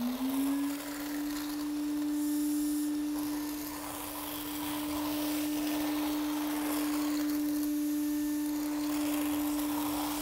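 Vacuum cleaner with a long hose and metal wand sucking up loose quartz aggregate from a floor. Its motor is finishing spinning up as the sound begins, then runs with a steady hum, while the suction noise swells and eases as the wand is swept back and forth.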